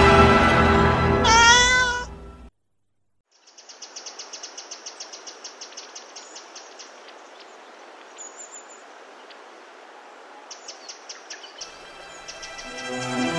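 Music fades out about two seconds in, just after a short rising cry. Then comes a quiet stretch of outdoor background noise carrying runs of rapid, high chirping clicks. Music swells again near the end.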